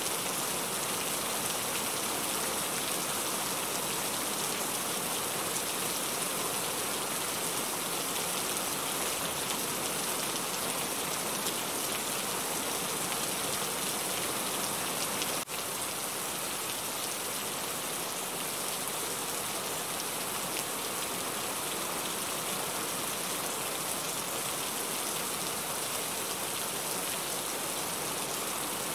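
Heavy rain falling steadily: a dense, even hiss, brightest in the high frequencies. There is a brief dropout about halfway through.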